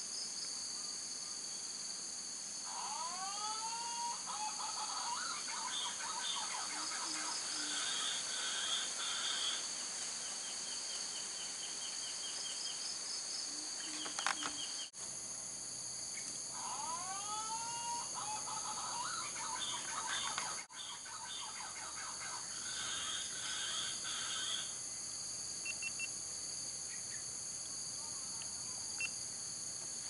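Green pigeons (punai daun) calling: runs of curving, falling whistles with warbling notes, in two long bouts about three to ten seconds in and sixteen to twenty-five seconds in, starting again near the end. Under it, a steady high insect drone. A single sharp click comes about fourteen seconds in.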